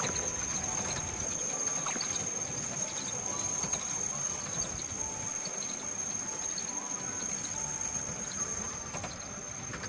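Children's miniature park train rolling along at speed: a steady rumble of the ride with a high-pitched whine held throughout.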